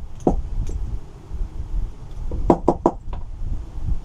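A carburettor being tapped to free a stuck brass needle jet: one light knock near the start, then four quick knocks about two and a half seconds in.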